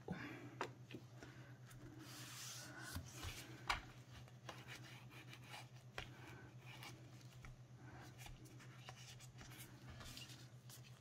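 Faint rubbing and rustling of cardstock as a bone folder is drawn over the folded paper and the card is handled, with a few soft ticks and taps. A steady low hum sits underneath.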